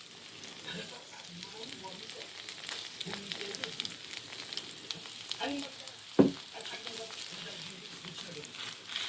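Jeon, Korean battered pancakes, sizzling and crackling in oil in a frying pan, with a sharp knock about six seconds in.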